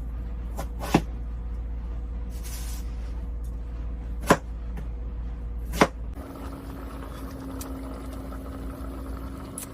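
A few sharp clicks and knocks over a steady low hum. About six seconds in, the hum changes to a different steady hum with a faint even tone.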